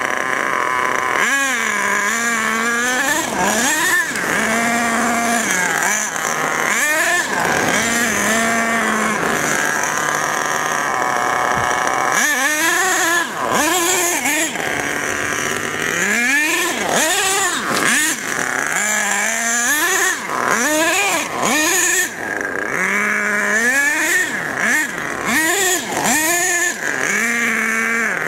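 HPI Savage RC monster truck's 3.5 cc two-stroke nitro engine revving up and falling back again and again as the truck is driven, its pitch rising and dropping in quick throttle bursts. The engine is set to run rich on the high-speed needle.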